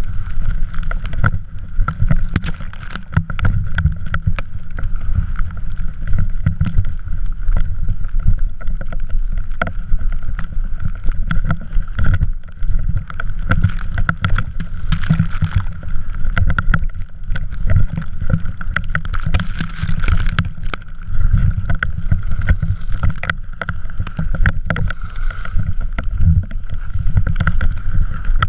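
Drift trike running over snow, picked up close by a GoPro mounted on it: a loud, continuous rumble with constant rattling and knocking of the wheels and frame, and wind buffeting the microphone.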